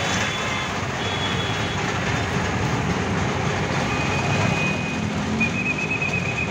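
Steady vehicle engine rumble and street noise, with a high thin tone sounding briefly about four seconds in and again, wavering, near the end.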